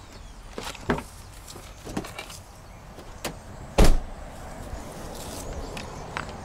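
Car door opening and shutting: a few clicks and knocks, then a loud thud about four seconds in.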